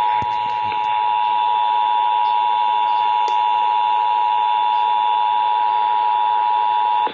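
Emergency Alert System two-tone attention signal for a Required Monthly Test: a steady pair of tones sounding together, cutting off suddenly at the very end.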